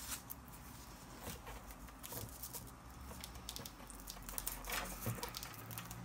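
Hands fitting a strap around a small battery pack: light, scattered rustling and scratching with small ticks, a couple a little louder near the end.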